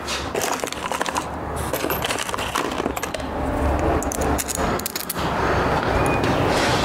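Small metal parts and hand tools clinking and rattling in many short, sharp metallic clicks as they are handled in a car's engine bay. About five seconds in, a steadier, louder noise takes over.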